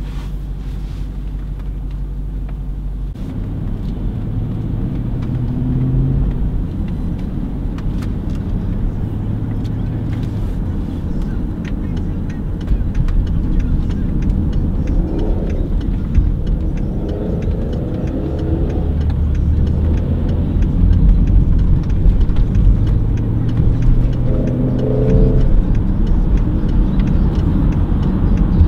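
Inside a BMW's cabin: the engine runs steadily, then about three seconds in its note climbs as the car gets under way, over a continuous low tyre-and-road rumble with occasional faint knocks.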